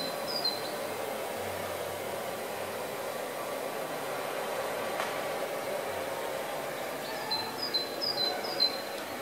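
Steady background din of a large exhibition hall, a constant hum and hiss, with a quick run of short high chirps near the end.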